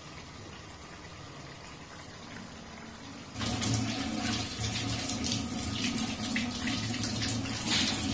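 Kitchen tap running into a stainless steel sink, the stream splashing over hands being washed under it. It comes in suddenly about three seconds in, after a quieter steady hiss.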